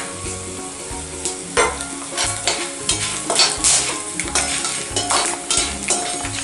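A perforated steel spatula scrapes and stirs coriander seeds, peppercorns and fennel seeds frying in hot oil in a kadai. Repeated scraping strokes, about two a second, sit over a steady sizzle as the whole spices roast.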